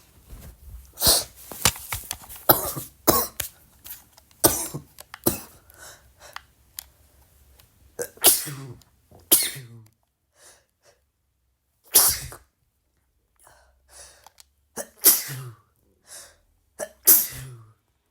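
A person sneezing over and over: a fast run of short, sharp sneezes in the first few seconds, then separate, louder sneezes one to three seconds apart.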